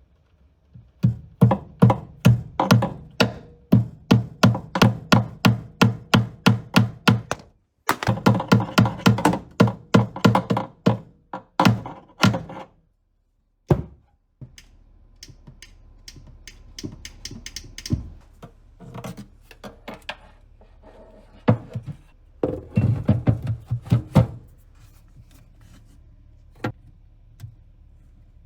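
Sharp thuds in a steady rhythm, about three a second, then a faster run, broken off twice. After that come scattered knocks over a low hum, with a short burst of thuds near the end.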